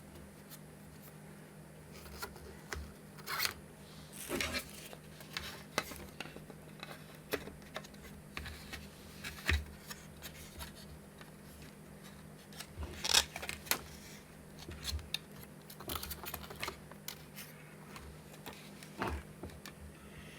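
Irregular small clicks, rubs and scrapes of plastic parts and a cable being handled and pushed into place while fitting an LCD monitor kit into its 3D-printed case, over a faint steady hum.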